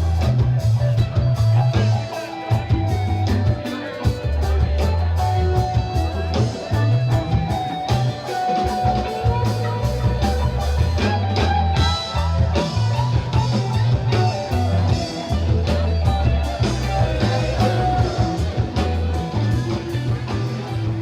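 Rock band playing with electric guitar, bass guitar and drums: a steady, driving bass line under a continuous beat.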